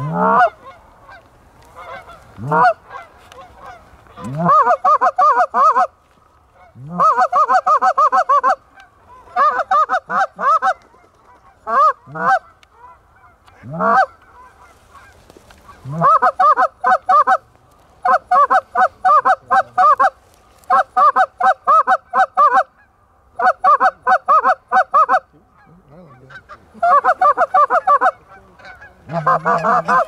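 Canada goose calling on a hunter's short-reed goose call. Single honks break sharply from a low note to a high one, and between them come rapid runs of clucks in bursts of a second or two, coaxing incoming geese toward the decoys.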